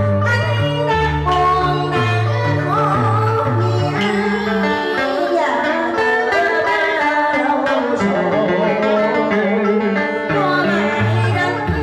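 Southern Vietnamese cải lương (đờn ca tài tử) music through a PA loudspeaker: plucked strings play sliding, bent notes over a steady bass line.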